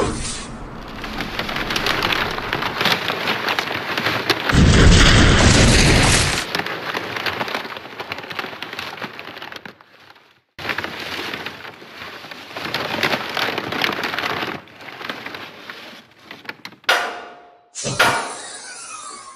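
Loose sand pouring and sliding as it is dumped, a rushing, rain-like hiss that grows to a heavy, louder rush about five seconds in. The sound breaks off abruptly a few times.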